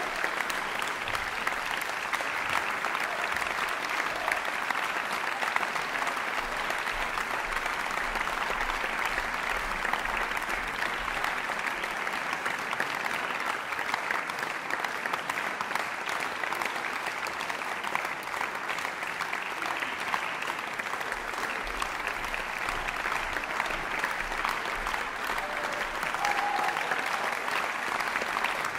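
Audience applauding steadily in a concert hall.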